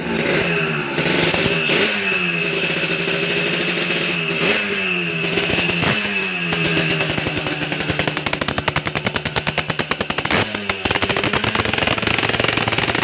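Yamaha RX-Special two-stroke motorcycle engine blipped several times, each rev rising and falling in pitch, then settling to a fast, even popping beat. The exhaust note is crisp and ringing (kemlinting).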